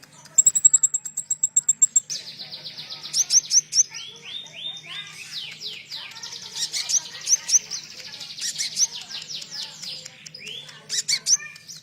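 Konin songbird singing a song filled with phrases of the cililin. It opens with a fast, high, even trill of about ten notes a second. From about two seconds in comes a long run of quick down-slurred whistled notes, several a second, with brief high flourishes near the end.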